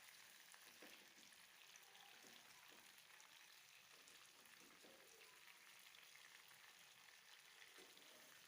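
Faint sizzling and light crackling of chicken pieces frying in mustard oil in a pan.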